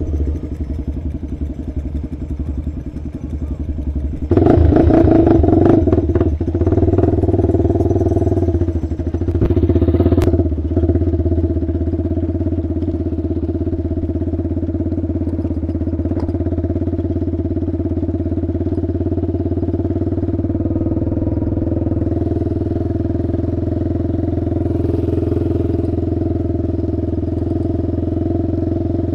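Honda 400EX ATV's single-cylinder four-stroke engine running low and uneven, then revved hard as the quad pulls away about four seconds in. It eases off and settles into a steady cruise on the trail.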